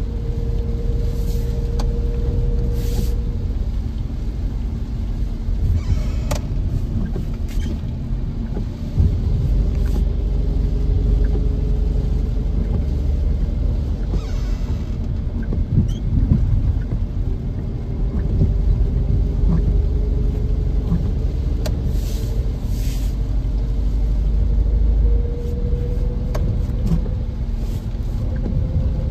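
A car driving, with a steady low rumble of engine and road. A faint engine tone slowly rises in pitch several times as the car picks up speed.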